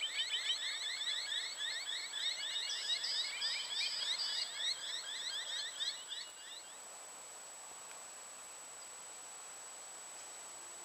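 Birds chattering: rapid high chirps, several a second, that stop about six and a half seconds in, leaving only a faint steady hiss.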